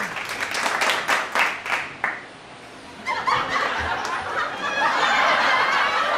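People laughing: a quick run of short laughs in the first two seconds, then, after a brief lull, laughter and chatter again from about three seconds in.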